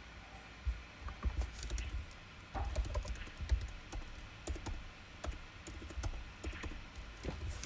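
Typing on a computer keyboard: irregular clusters of short key clicks with soft low thuds as a file name is entered.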